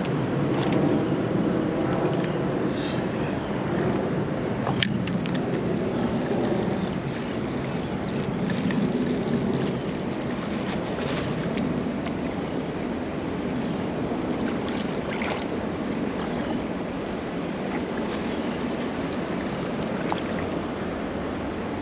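Steady rush of flowing river water with wind noise on the microphone, broken by a few small clicks and one sharp tick about five seconds in.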